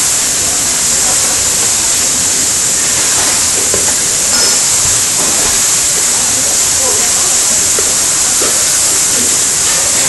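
Beef cutlets sizzling in hot oil in a steel wok: a steady, loud hiss of searing meat.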